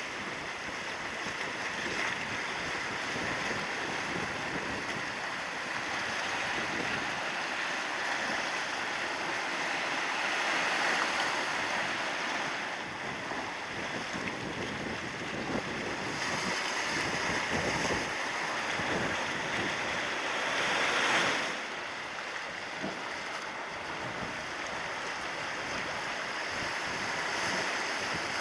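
Surf washing against a rocky shore: a steady rush that swells and eases, with the biggest surge about 21 seconds in.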